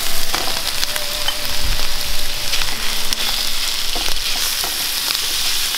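Pork mince sizzling as it drops into hot oil in a non-stick frying pan with onion and garlic, with a steady high sizzle and a spatula pushing and scraping the meat about.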